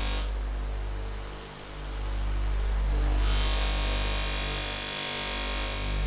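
Electric bench grinder running with a cotton buffing wheel, giving a steady motor hum. A high hiss drops out briefly and comes back about three seconds in.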